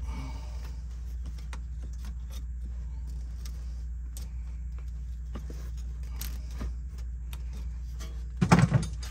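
Light metallic clicks and clinks of pliers working spring hose clamps onto a rubber fuel line at an inline fuel filter, over a steady low hum. A loud short thump comes near the end.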